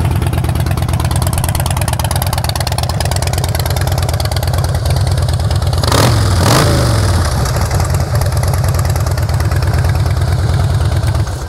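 2011 Harley-Davidson Fat Boy's 96-cubic-inch V-twin idling through Vance & Hines slash-cut exhaust, with a steady loping beat. It is blipped twice in quick succession about six seconds in, the revs rising and falling back to idle.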